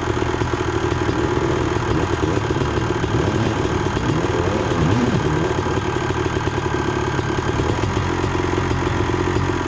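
Honda CR250R's single-cylinder two-stroke engine with an expansion-chamber pipe, running steadily at low revs, its pitch wavering a little about midway.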